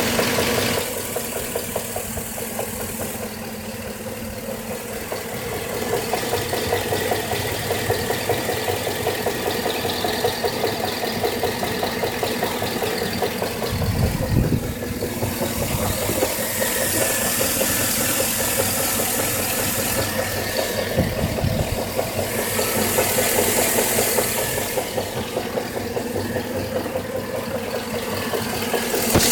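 2013 GMC 5.3L V8 engine running steadily at idle with a knocking sound from the passenger side of the engine, an abnormal knock on a new engine at only 1800 miles.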